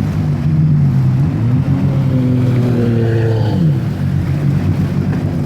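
Jet ski engine running steadily. Its pitch climbs after about two seconds, then drops away sharply about a second and a half later before settling again.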